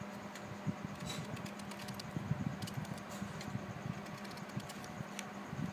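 Raw green mango being peeled by hand: irregular light scrapes and clicks of the blade cutting thin strips of skin, over a steady low hum.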